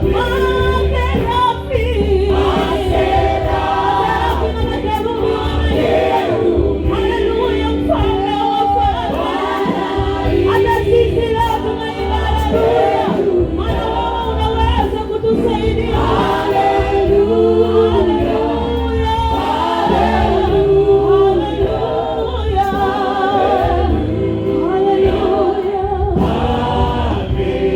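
Congregation and choir singing a gospel song over a steady bass accompaniment.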